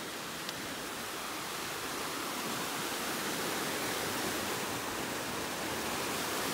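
A creek running close by, a steady rush of babbling water that grows a little louder as it goes on.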